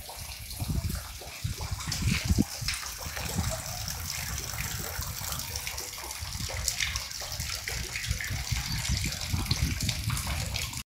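Steady rush of water from an overflowing lake, with irregular low rumbles underneath; the sound cuts off suddenly near the end.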